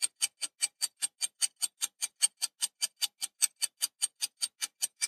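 Clock-ticking sound effect, about five quick, even ticks a second, timing the pause for answering a quiz question.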